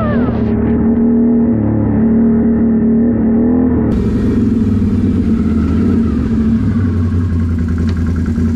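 Can-Am 1000 ATV's V-twin engine running while riding, its pitch rising and falling with the throttle. About four seconds in the sound changes abruptly to a steadier engine note.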